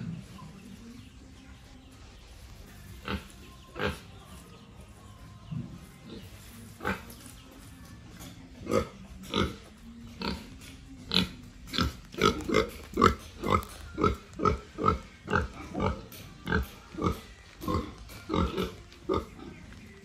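A pig grunting in short bursts with its snout to the floor. There are a few scattered grunts at first, then from about halfway a steady run of about two grunts a second.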